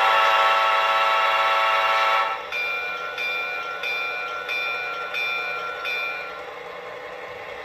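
Model locomotive's Blunami 4408 sound decoder sounding a Nathan P5 diesel air horn in one loud blast of about two seconds, then ringing the locomotive bell about six times, roughly a stroke and a half per second, through the model's speaker.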